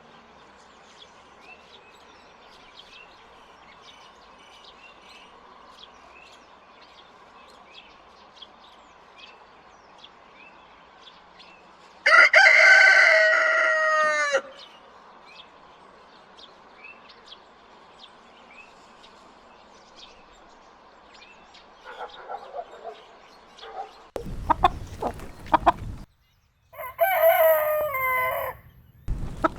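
Rooster crowing twice: one long crow about twelve seconds in and a second near the end. Faint chirping runs underneath before the first crow, and a short burst of noise comes just before the second.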